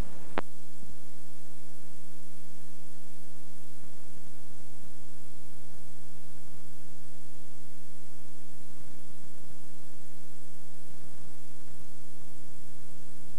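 Steady electrical hum with a faint hiss from the playback of a blank tape, with a sharp click about half a second in.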